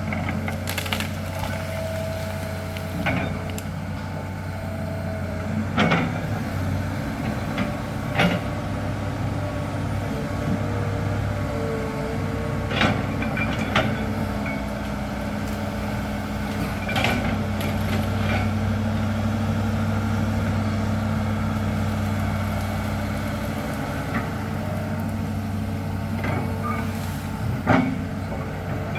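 Large hydraulic excavator's diesel engine running steadily under load. Short sharp cracks and knocks come every few seconds, the loudest near the end.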